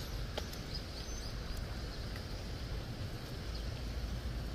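Steady outdoor street ambience: a low rumble of road traffic with a few faint, short, high bird chirps.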